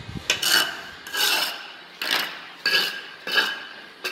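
Steel trowel scraping and spreading wet cement mortar on a marble slab, in about five separate strokes less than a second apart.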